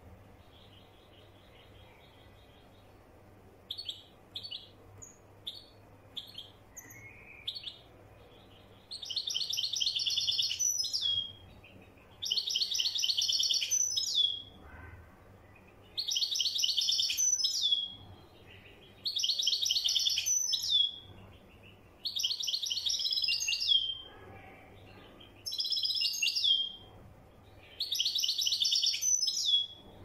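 Caged European goldfinch singing in the Moroccan Marrakchi style. It starts with a few short, separate high notes, then sings seven trilled phrases of about two seconds each, with short pauses between them and a falling note at the end of each.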